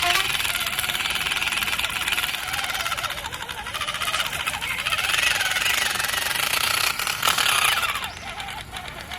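Electric motors and gearboxes of radio-controlled model trucks whining and buzzing, the pitch sliding up and down as they speed up and slow down, easing off near the end.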